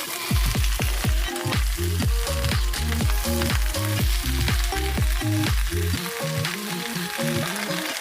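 Background music with a deep, pitch-falling bass beat and a simple melody, over a steady crackling, sizzle-like hiss. The bass drops out about six seconds in.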